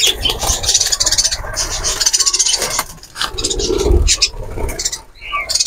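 Wire mesh of an aviary cage rattling and scraping as a person squeezes in through its small door, his body and shirt rubbing against the wire, with a heavier bump about four seconds in.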